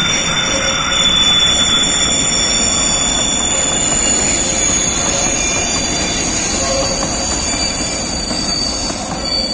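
Freight hopper wagons rolling slowly past on a curve, their wheel flanges squealing against the rail in several high, steady tones over the continuous rumble of wheels on track.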